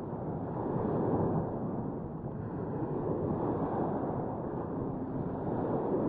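Seaside ambience: a steady low rush of wind on the microphone over surf, swelling and easing every couple of seconds.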